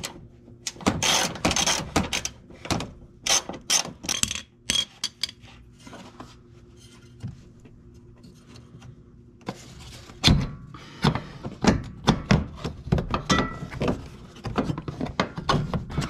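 Ratchet wrench clicking and metal clanking as the bolts of a Porsche 996 front control arm are worked loose and the arm is handled free. The clicks come in two busy spells with a quieter stretch in the middle.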